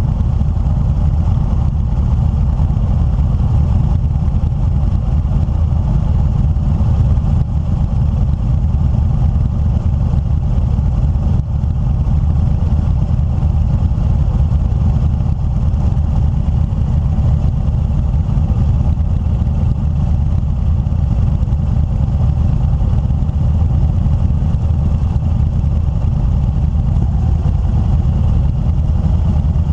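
Motorcycle engine idling steadily while stopped.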